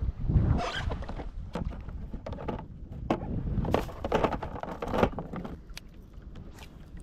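Fishing gear handled on a plastic kayak: irregular sharp clicks and knocks as pliers, rod and fittings are moved, most of them in the first five seconds. Under them runs a low, steady rumble of wind.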